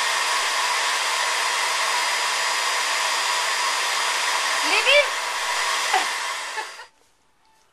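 Blow dryer running steadily on a dog's wet coat, then switched off about seven seconds in, leaving near silence. A brief squeaky rising-and-falling sound cuts through the dryer's noise about five seconds in.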